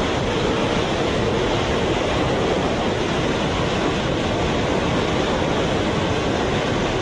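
A steady, unvarying rushing noise with a low rumble underneath.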